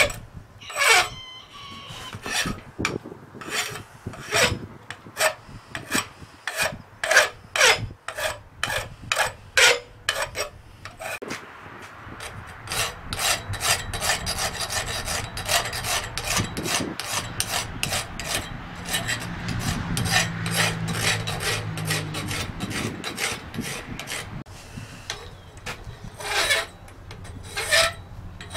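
Hand file rasping on forged mild steel clamped in a vise, stroke after stroke. The strokes come separately, one to two a second, for the first ten seconds or so, then turn quicker and lighter through the middle, with a few hard strokes again near the end.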